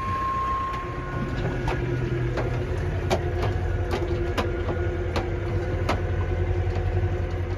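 A machine's engine running steadily under load while logs are dragged on a short chain. A sharp click or knock comes about every 0.7 seconds from about a second and a half in.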